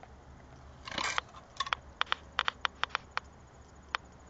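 Geiger counter clicking irregularly as its Eberline HP-260 pancake probe is held against a cinder block. The clicks come at a low, near-background rate of about 150 to 200 counts per minute. There is a short burst of noise about a second in.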